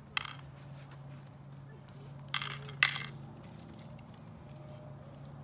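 Mancala stones clicking against each other and the wood as they are dropped into the pits of a wooden mancala board: one click at the start, then a quick run of clicks about halfway through, the last the loudest.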